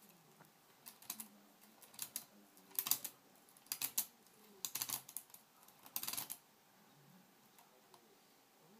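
Lock picks clicking against the pins of a KASP high security padlock while it is being picked: short clusters of light clicks roughly once a second, stopping about six seconds in.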